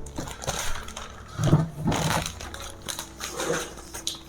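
Crushed Doritos crunching and rustling in irregular bursts as they are handled for a fried-chicken crust.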